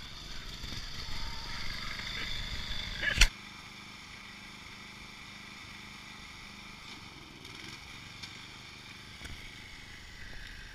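Riding lawn mower's small engine running close by, ended about three seconds in by a sharp click and a sudden drop in loudness; after that the engine is heard faint and steady.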